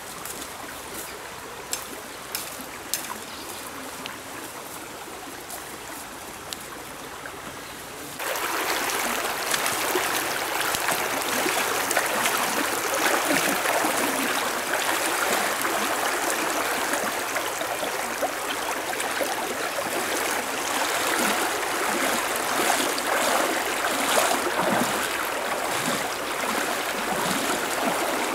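A quieter stretch with a few light clicks, then, about eight seconds in, the steady rushing of a shallow stream flowing over stones, with water splashing as someone wades through it.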